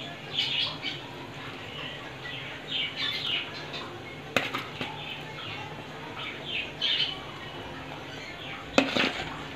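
A metal spatula knocks twice against an iron kadai of simmering curry as pieces of tuna are slid in, the knocks about four seconds apart. Short, high chirping sounds come in between.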